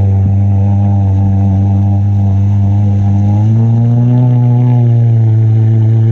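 Kawasaki SX-R 1500 stand-up jet ski's four-cylinder engine running hard under way, its pitch stepping up about halfway through as the revs rise.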